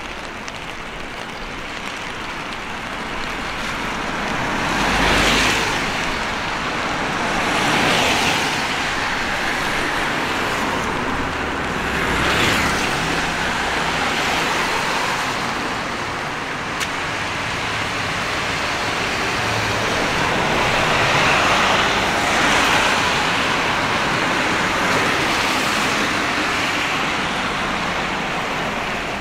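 Several cars pass one after another on rain-soaked pavement, each one's tyre hiss swelling up and fading away. A steady hiss of rain and wet road noise runs underneath.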